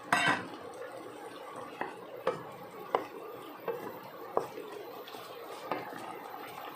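A utensil stirring chopsuey vegetables in sauce in a stainless steel pot, with a louder clatter at the start and then scattered clinks and knocks of the utensil against the pot.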